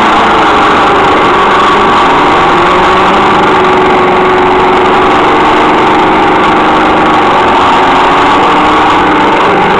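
Demolition derby car engines running and revving, loud and steady, their pitch wavering up and down.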